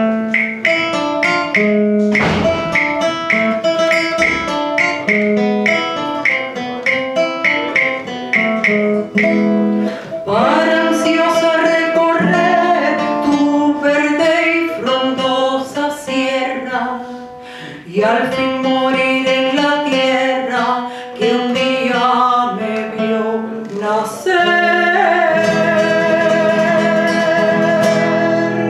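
A classical guitar plays a repeating plucked figure, and a woman's voice comes in singing a song over it about ten seconds in. Near the end the guitar strums a chord that rings on under a long held sung note.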